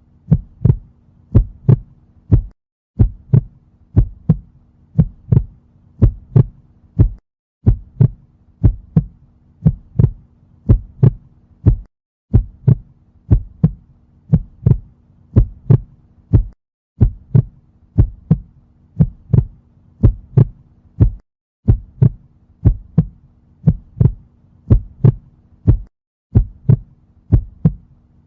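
Heartbeat: steady paired 'lub-dub' thumps, evenly repeating, with a faint low hum underneath that drops out briefly every four to five seconds.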